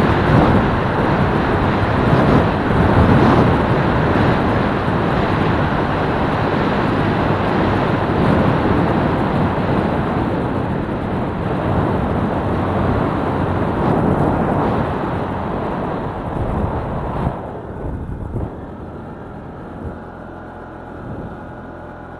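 Wind rushing over the microphone of a small motorcycle on the move, with its engine running underneath. About seventeen seconds in the wind noise falls away and the engine's steady hum comes through.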